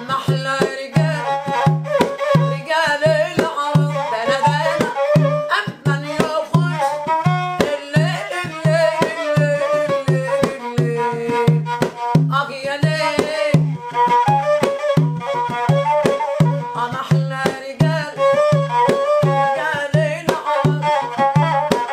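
Egyptian Dom folk song: a woman sings in a raw, lively voice while beating a steady rhythm on a doff frame drum, with a bowed rababa spike fiddle playing alongside.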